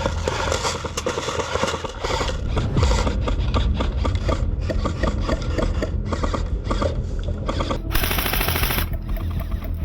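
Airsoft gun firing rapid full-auto strings, a fast run of sharp clicks. About eight seconds in, a loud hiss lasts about a second.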